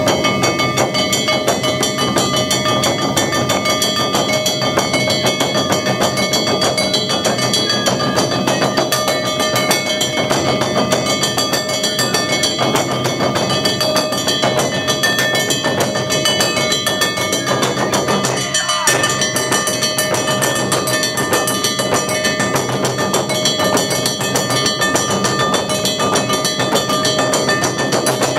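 Large shoulder-slung taiko drums beaten with sticks together with a hand-held metal gong (kane) struck over and over. They play a continuous fast rhythm, with the gong's bright metallic ringing sustained over the drumbeats.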